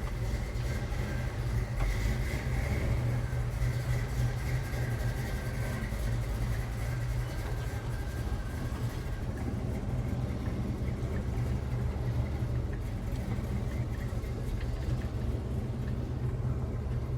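The 1966 Chevy C10's 383 stroker V8 running steadily at low revs, with no sharp revving.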